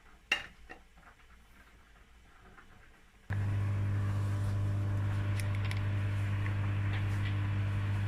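A sharp click and a lighter one from a microwave oven being shut and set, then about three seconds in the microwave starts running with a steady low hum.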